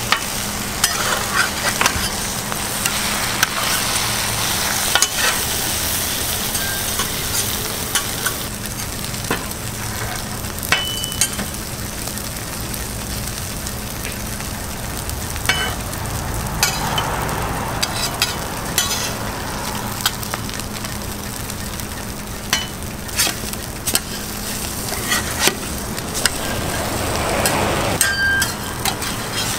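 Egg and bread frying on a flat-top griddle, sizzling steadily, with frequent sharp clicks of metal spatulas on the steel plate.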